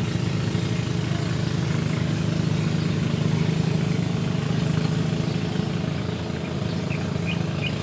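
An engine running steadily at low revs, a constant low hum that barely changes.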